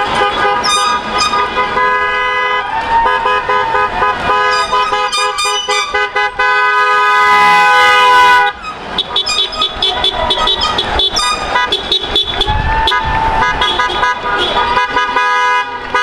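Many car horns honking over and over from a slow procession of passing cars, short toots overlapping one another, with one long unbroken honk from about seven to eight and a half seconds in.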